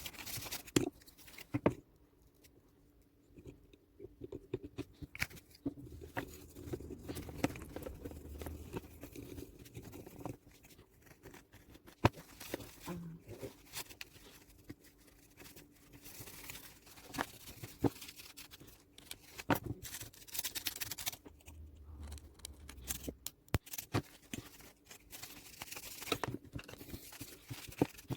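Irregular clicks, taps and scraping of small plastic parts handled by hand as a remote control is worked on, with a faint steady hum underneath.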